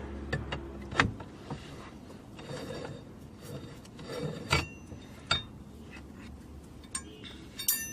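Hand tools clinking and scraping on metal: a 21 mm wrench being worked on the steering wheel's hub nut. A few sharp metallic clinks, some of which ring briefly, with rubbing and scraping in between.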